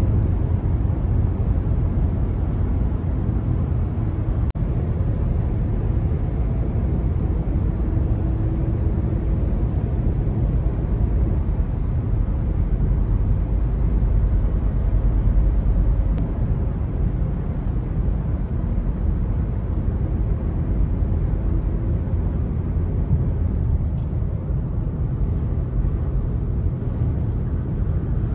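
Steady road and engine noise of a car at highway speed, heard from inside the cabin, with a deep continuous rumble, while driving through a road tunnel.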